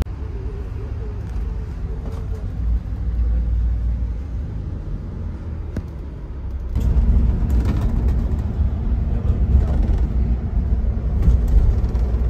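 Steady low engine and road rumble heard inside a moving coach on a highway, louder from about seven seconds in.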